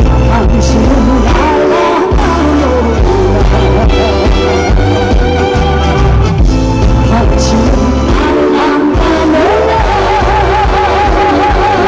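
A woman singing live into a microphone over amplified backing music with a steady bass beat. Near the end she holds one long note with vibrato.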